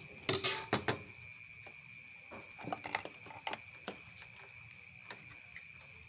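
Sharp plastic clicks and clatter of a washing machine's door-lock switch assembly being handled and worked by hand, in two flurries: one about a second in and one from about two and a half to four seconds in. A steady high-pitched tone runs underneath.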